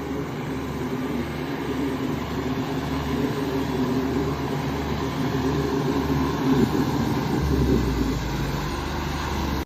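Tractor diesel engine running steadily, with a low pulsing throb; about three-quarters of the way in the low rumble turns steadier and stronger.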